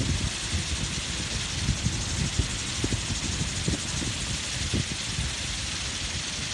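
Wind buffeting the microphone on an open boat deck: an uneven low rumble with frequent short thumps over a steady hiss.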